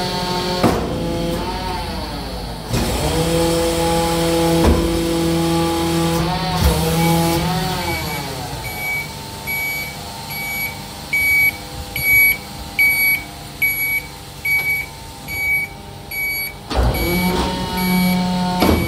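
Press-type rear-loader garbage truck running its compaction cycle: the engine and hydraulics rise and fall in pitch, with a few metallic clunks. Partway through, the truck's warning beeper sounds a steady series of high beeps, a little under two a second. Near the end there is another clunk, and the engine rises again.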